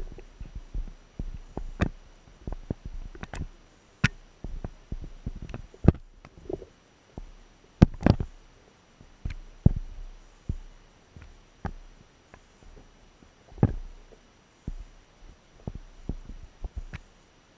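Irregular muffled taps and knocks on a submerged camera's waterproof housing, picked up underwater over a faint low rumble; juvenile sockeye salmon are crowding and bumping against the lens. The loudest knock comes about eight seconds in.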